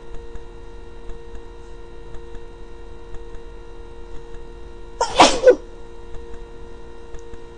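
A person sneezes once, about five seconds in: a short, loud sneeze with two quick peaks. A steady faint hum runs underneath.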